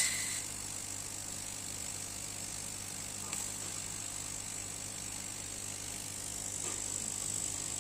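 Steady hum and hiss of a running CO2 laser cutting machine, typical of its fans and pumps. There is a sharp click with a brief high beep at the very start, and faint ticks later.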